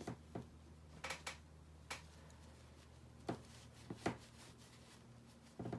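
Light, irregular clicks and taps of small metal paintball-regulator parts and hand tools being handled and set down, about one every second, over a faint steady low hum.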